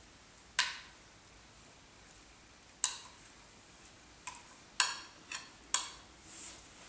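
A metal spoon clinking against a ceramic bowl while scooping stew: about six short, bright clinks at uneven intervals, most of them in the second half.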